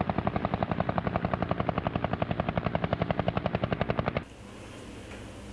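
Helicopter rotor sound: a fast, even chopping of roughly a dozen beats a second that cuts off suddenly about four seconds in, leaving a faint hum.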